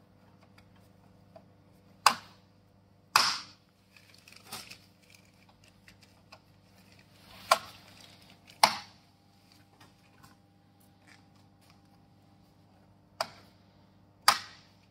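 Fiber laser cutting machine switched on for a test: a steady electrical hum with three pairs of sharp mechanical clicks, each pair about a second apart and repeating every five seconds or so, some with a short hiss after the click.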